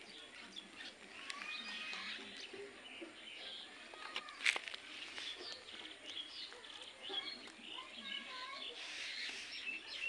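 Birds chirping and twittering in short, high, bending notes, with a single sharp click about four and a half seconds in.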